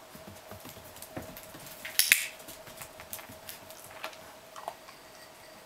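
A puppy's claws ticking and skittering on a hardwood floor, with a sharp clatter about two seconds in that is the loudest sound.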